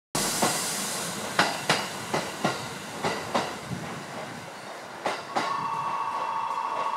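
A short hiss, then scattered clicks and knocks around a train standing at a platform. About five seconds in, an electric platform departure bell starts ringing, a steady rapid trill.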